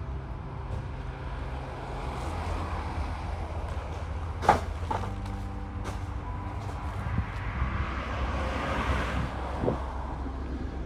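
A steady low engine rumble, with a vehicle passing that swells and fades about eight to nine seconds in. A single sharp knock about halfway through is the loudest sound.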